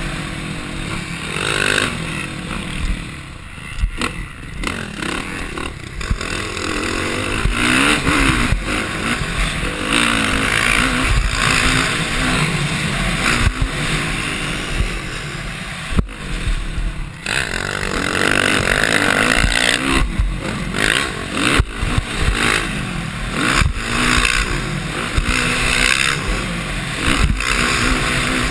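Dirt bike engine revving up and falling back again and again as the rider accelerates and shifts on a motocross track, heard from a helmet-mounted camera with wind rushing over the microphone. A few sharp thumps break in along the way.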